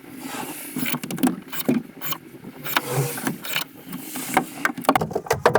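Irregular knocks and clicks, with a short rushing noise in the first second.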